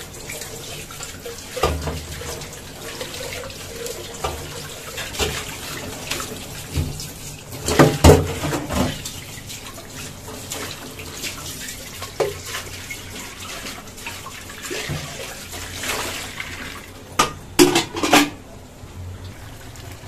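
Tap water running and splashing into a stainless steel kitchen sink as metal pots are rinsed under it, with clanks of the pots knocking against the sink and each other, loudest about eight seconds in and again near the end.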